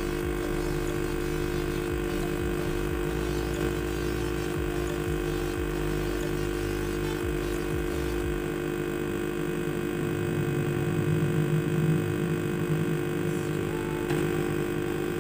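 Hot-air heat gun blowing steadily onto a flash memory chip to desolder it, giving a slight, steady fan hum with a few fixed tones. The deeper rumble beneath it drops away about halfway through.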